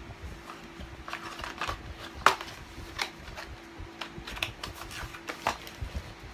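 Irregular sharp clicks and light rustling of objects and packaging being handled, the sharpest click about two seconds in.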